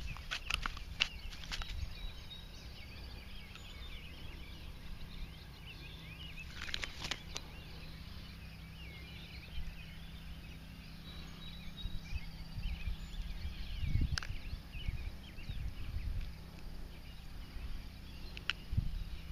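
Quiet outdoor background of birds chirping over a steady low hum, with a few brief clicks and knocks as a small bass is handled and unhooked.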